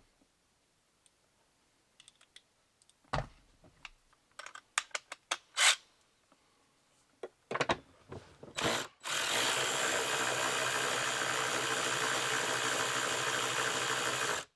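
A few sharp clicks of a tool and socket being handled, then a cordless power tool's motor running steadily for about five seconds, spinning off the 10 mm nuts that hold the Ford Flex's fuel pump relay module.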